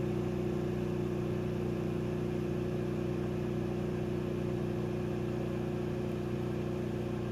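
Motor-driven magnet-and-ferrite rotor of a homemade generator spinning with a steady hum and an even, unchanging pitch. One output coil is short-circuited and loading it, and the rotor holds its speed without slowing.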